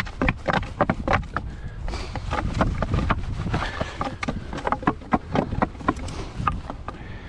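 A dog digging and nosing into a narrow gap between boulders after a hiding mink: a quick, irregular run of scrapes, knocks and sniffs on rock, over a low wind rumble on the microphone.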